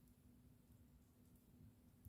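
Wood fire burning in a fireplace, very faint: a low steady noise with a constant hum and only a couple of faint crackles.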